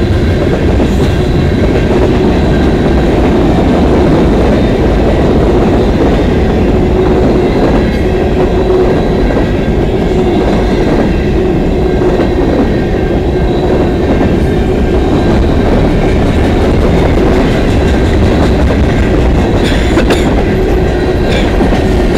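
Freight cars of a CN manifest train rolling past at track speed: a steady, loud rumble of steel wheels on the rails, with some clicks over the rail joints near the end.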